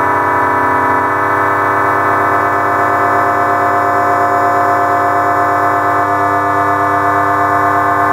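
FM MINT mk2 FM synthesizer playing a sustained drone chord of steady stacked tones with a slow wobble. The chord shifts about a second in and again about six seconds in.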